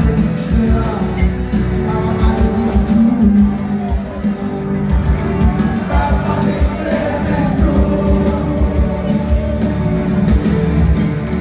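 Live party band playing amplified music with singing over a steady drum beat, in a large, echoing festival tent.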